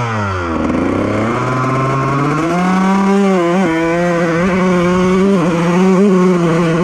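2001 Honda CR125R's single-cylinder two-stroke engine being ridden. The revs fall away in the first half-second, then climb over the next two seconds and hold fairly steady, with a few brief dips as the throttle is worked.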